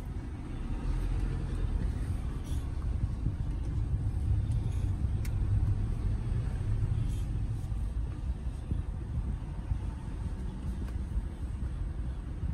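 Car running, heard from inside the cabin: a low, steady rumble.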